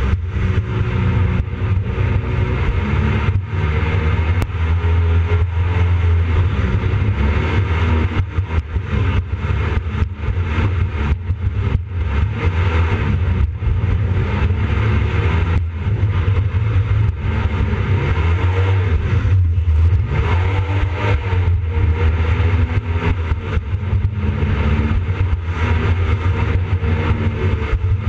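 Jet boat engine running loud, its pitch rising and falling repeatedly as the throttle is worked.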